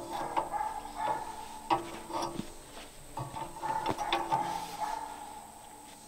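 A wrench working the arbor nut of a large circle sawmill blade, with scattered metal clinks and knocks as it is fitted and turned. Behind them a steady humming tone comes and goes.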